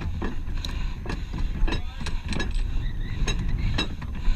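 Steady low rumble with a string of irregular sharp knocks and clinks of gear being handled on the deck of a Thames sailing barge.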